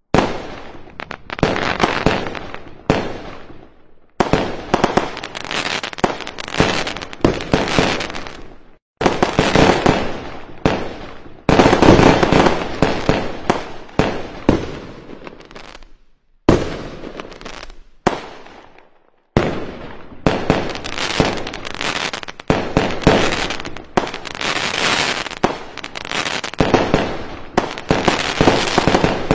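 Fireworks display: a dense barrage of shells bursting, many bangs and crackles running close together. The sound cuts off abruptly several times and starts again.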